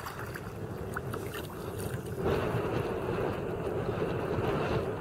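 Small splashes and drips of water against a kayak hull, then from about two seconds in a louder, steady rush of wind on the microphone over the lapping water.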